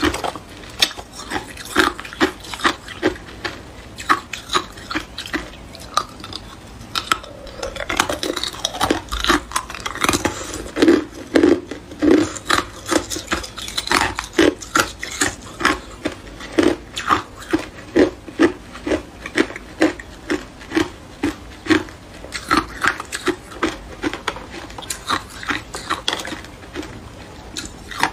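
Hard clear ice being bitten and crunched, a long run of sharp cracking crunches at about one to two a second, with ice cubes clinking against each other as they are handled.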